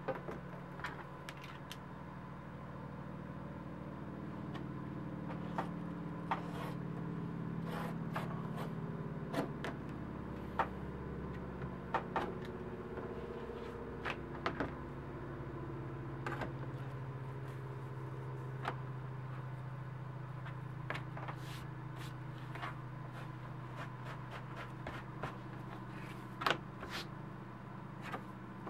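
A steady low hum with slowly shifting pitch, with scattered light clicks and taps as a leather pattern template and a piece of elephant leather are handled on a plastic cutting mat.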